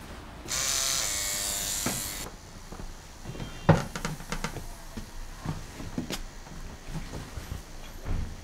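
Electric tattoo machine buzzing steadily for just under two seconds, then cutting off. Scattered light knocks and clicks follow.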